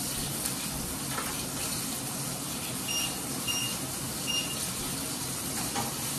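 Floured halloumi fries frying in hot vegetable oil in a frying pan: a steady sizzling hiss. About three seconds in, three short electronic beeps.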